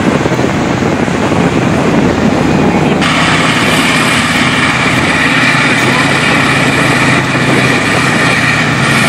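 Armoured vehicle engine running steadily while laying a thick smoke screen, with a higher whine joining about three seconds in. Crowd voices underneath.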